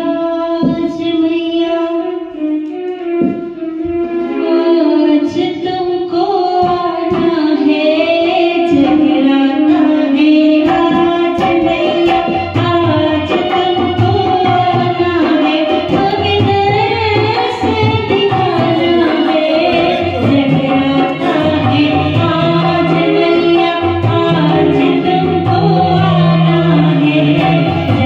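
A woman singing a Hindu devotional jagrata bhajan into a microphone, live, with keyboard and dholak drum accompaniment.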